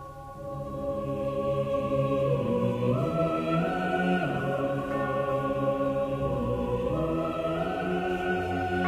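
Background choral music: voices holding long, slow chords that move to new chords twice.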